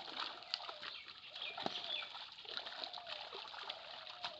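Water splashing and sloshing in a pond, with irregular clicks and splashes, while small birds chirp briefly about the middle.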